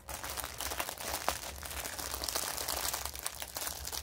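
Small plastic bags of diamond painting drills crinkling and rustling as they are handled and packed away, with many small clicks.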